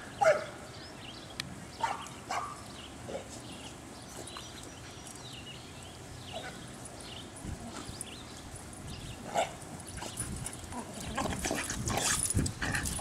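Two dogs, a blue nose pit bull and a boxer, play-fighting and making short dog sounds: a few near the start, one about nine seconds in, and more closely packed near the end.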